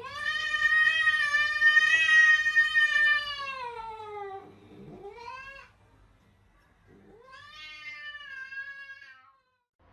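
A cat yowling in three drawn-out meows. The first is long, about four seconds, and falls in pitch at its end; a short rising call follows, then another call lasting about two seconds.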